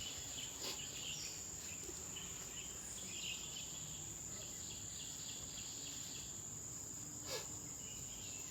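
Steady high-pitched drone of forest insects calling, with a single faint snap about seven seconds in.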